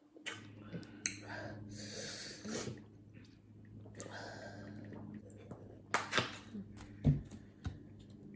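Sharp breaths and hissing exhales through a mouth burning from spicy noodles, over a steady low hum. Several clicks and knocks from a plastic bottle and cups being handled come near the end, the loudest a thump about seven seconds in.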